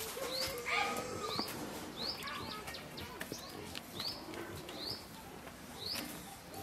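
A bird calling over and over with short, sharp rising chirps, about one a second, over faint outdoor background with light scrapes and rustles. A lower, steadier call sounds briefly near the start.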